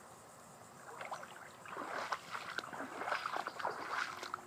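Water splashing and gurgling in short, irregular bursts, starting about a second in.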